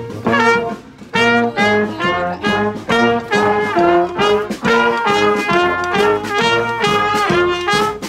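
Street brass band of trombones, trumpet, sousaphone, clarinet and drums playing a punchy rock riff in short repeated notes over a steady drum beat. After a short lull the full band comes back in about a second in.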